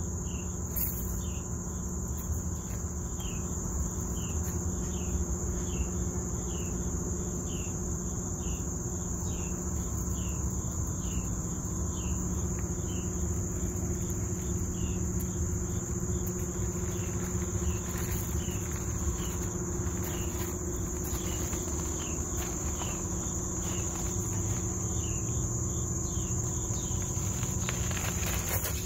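Outdoor insect drone, a steady high-pitched buzz, with a short falling chirp repeating about one and a half times a second until near the end. A steady low hum runs underneath.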